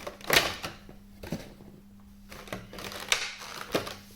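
Rustling and clicking of a Funko Pop's cardboard window box and plastic insert being handled as the vinyl figure is taken out: a handful of short sharp rustles and clicks with quiet gaps between them.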